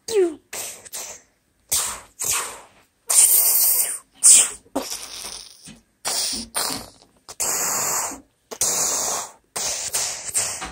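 A child making mouth sound effects: a string of short hissing, explosion-like bursts, each cut off abruptly with brief gaps between.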